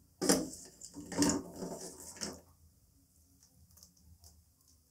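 A few light taps and clicks as almonds and raisins are dropped onto the cooked sweet rice in the pan during the first two seconds or so, then near silence.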